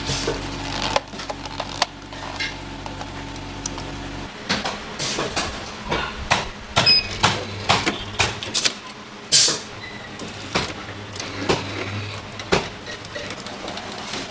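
A steady machine hum cuts off about four seconds in. Then come irregular sharp knocks and clicks of kitchen utensils and cookware being handled.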